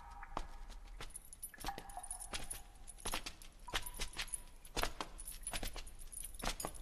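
Metal chains clinking and jangling in irregular, sharp strokes as they swing, over a faint low hum.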